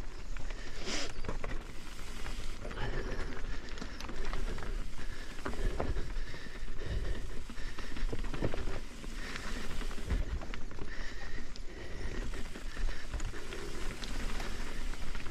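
Mountain bike rolling down a rocky dirt singletrack: tyre noise over dirt and rock, with frequent knocks and rattles from the bike as it drops over rock steps and roots.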